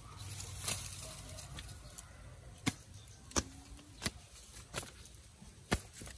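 A series of short, sharp taps, several spaced evenly about two-thirds of a second apart, over a low steady rumble.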